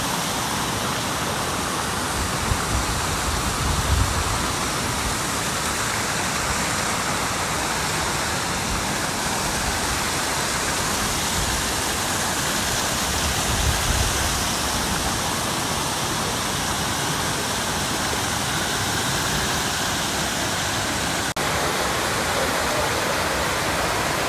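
Curtain waterfall of many thin streams spilling over a rock ledge into a pool, making a steady, even rush of falling water. A couple of brief low bumps come about 4 and 14 seconds in, and there is a momentary break near the end.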